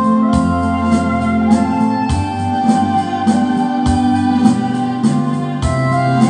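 Instrumental break of a song: an electronic organ-style keyboard holding sustained chords that change every second or two, over a steady slow drum beat.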